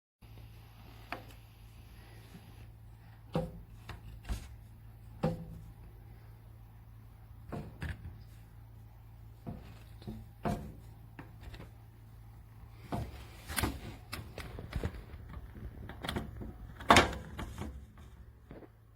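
Workbench drawers being slid open and pushed shut, a string of separate knocks and clunks, the loudest about three-quarters of the way through, over a steady low hum.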